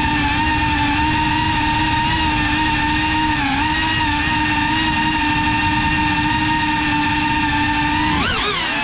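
GEPRC Cinelog35 FPV drone's motors and propellers whining steadily at a fairly even throttle, with a brief dip in pitch a few seconds in. Near the end the pitch drops sharply, then swings up and down.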